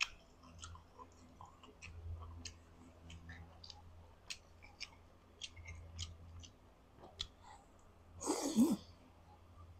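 Close-up eating sounds: faint clicks and small mouth and chewing noises. Then, about eight seconds in, one loud, noisy slurp as a mouthful of rice vermicelli noodles is sucked in.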